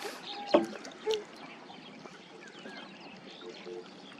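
Water trickling and dripping around a small wooden boat, with a sharp knock about half a second in and a softer knock a little after a second.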